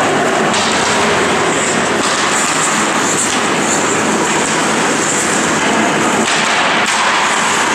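Steady, loud noise of ice hockey play in a rink, with skates scraping on the ice.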